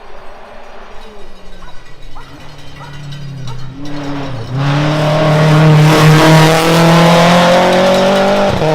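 Rally car approaching at speed, its engine rising in pitch. About four and a half seconds in, the pitch briefly drops and the car grows much louder as it comes close under full power. Near the end the pitch drops briefly again.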